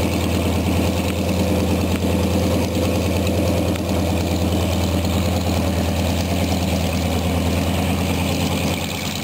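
Yak-52's nine-cylinder radial engine running at a steady taxi idle with a low drone, easing slightly quieter near the end.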